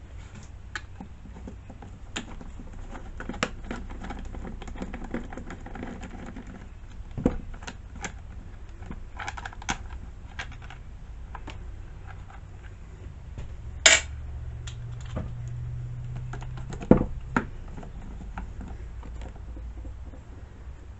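Scattered small clicks, taps and rattles of hand tools, screws and plastic chainsaw parts being handled as the saw's top cover is unscrewed with an Allen key. There are two sharper, louder clicks in the second half, over a steady low hum.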